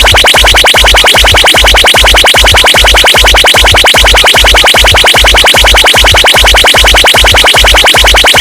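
Very loud electronic DJ remix music: a deep bass kick repeating about two to three times a second under a fast, buzzing synth pulse.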